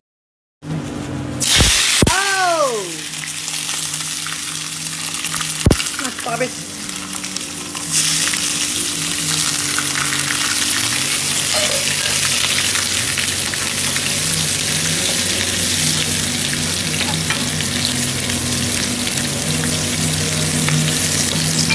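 Sliced shallots, dried chillies and curry leaves sizzling in hot oil in a stainless steel pan as they are stirred with a spatula. The sizzle starts about two seconds in and grows louder about eight seconds in, over a low steady hum.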